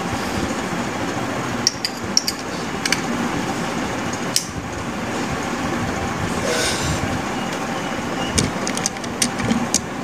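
Steady rumbling background noise with scattered light clicks and taps, a screwdriver handled against a plastic switch-and-socket board, bunched about two seconds in and again near the end.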